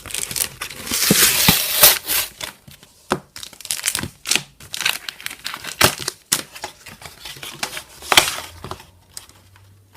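Plastic blister pack and its cardboard backing being torn open and handled: loud crinkling and tearing in the first two seconds, then scattered crackles and snaps that die down near the end.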